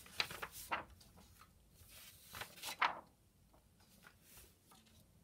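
Sheets of paper rustling and a few soft knocks as an exam paper is handled and its page turned over, loudest just before three seconds in, then quiet room tone.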